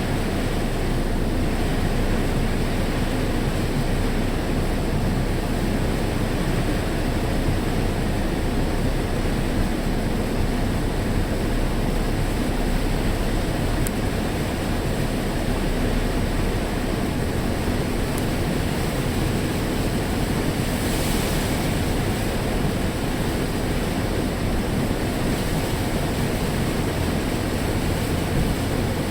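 Heavy typhoon rain pouring down: a dense, steady hiss, swelling briefly about two-thirds of the way through.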